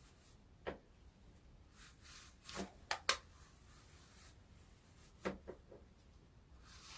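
Faint rubbing and rustling of hands smoothing a wig's hair down, with a few short, sharp strokes in a small room.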